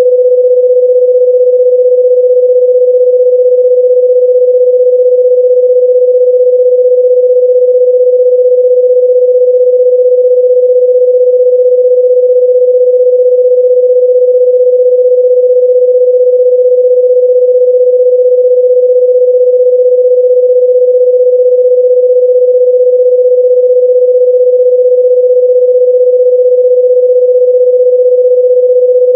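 Loud, steady electronic sine tone, mid-pitched and unwavering, a single pure note with nothing else over it.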